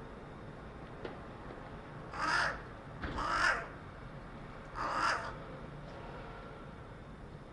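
Carrion crow cawing three times with short gaps between calls, the middle caw the longest.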